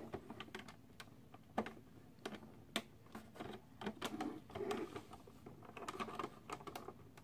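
Quiet, irregular plastic clicks and taps as fingers work the hinged doors and latches of a Transformers MP-10 Optimus Prime toy trailer, trying to prise it open.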